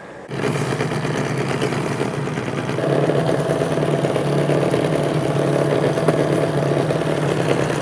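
An engine idling steadily with an even low drone, getting a little louder about three seconds in.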